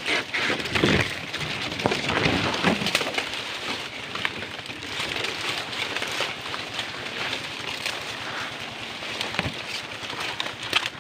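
Dry palm fronds and leaves rustling and crackling with many small snaps as a person climbs and pushes through them, with clothing brushing against the leaves.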